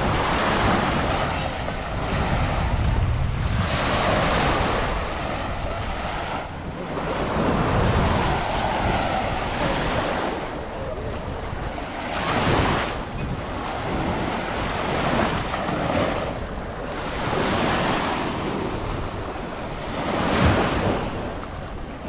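Sea waves breaking and washing up on a sandy beach, swelling and falling every few seconds, with wind buffeting the microphone.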